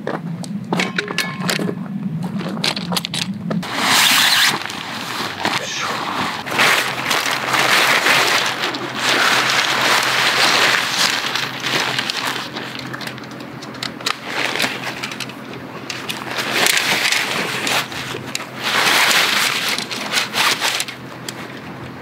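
Footsteps crunching on gravel for the first few seconds, then nylon tent fabric of a The North Face Stormbreak 1 rustling and dragging over gravel in rough swells as the small tent is pitched and its poles are worked into place.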